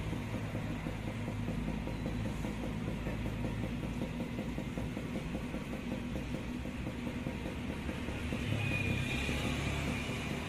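Steady low hum of an idling engine, with street traffic haze behind it.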